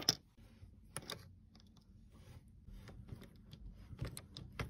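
Irregular light metallic clicks and taps of a silver-plated spoon being worked in a ring bender's 18 size die, the spoon head jammed in to start curving it into a ring.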